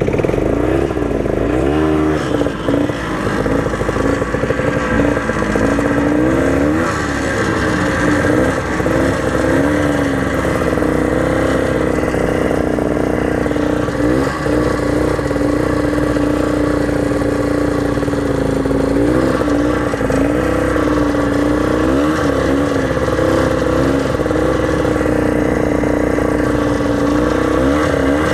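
Snowmobile engine running steadily under way, its pitch rising and falling briefly several times as the throttle is eased and opened again.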